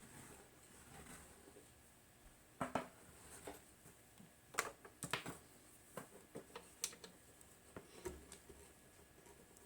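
Faint, scattered light clicks and taps of small objects being handled on a workbench, a few sharp ones between about three and seven seconds in.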